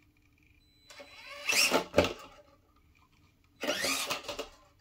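Electric motor and gearbox of an FMS FCX24 K-5 Blazer RC crawler whining in two short bursts, the pitch rising as it spins up, after its 2-speed transmission is shifted.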